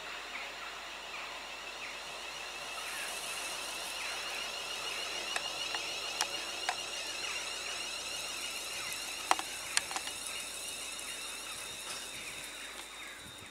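ScotRail Class 380 Siemens Desiro electric multiple unit drawing into the station and standing at the platform: a steady high-pitched electrical whine over a hiss, with a few sharp clicks around the middle.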